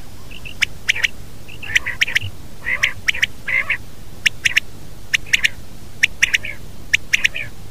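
Quail calling: quick groups of two or three sharp, very short calls, about one group a second, alternating with longer, raspier calls.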